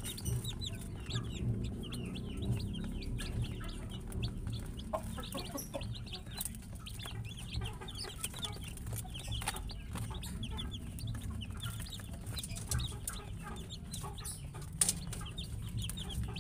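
A brood of baby chicks peeping without pause: many short, high chirps overlapping, with scattered light clicks.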